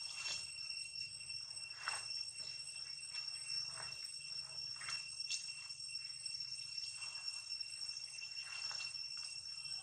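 Steady high-pitched insect drone, one unchanging tone with an overtone, with a few faint rustles scattered through it.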